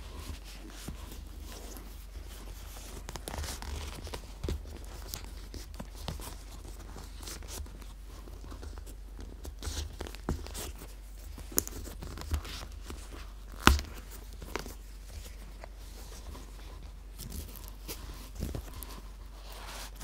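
Hands handling a leather case, with rustling and a scattering of sharp clicks as its strap press-stud snaps are pulled open; the loudest click comes about two-thirds of the way through.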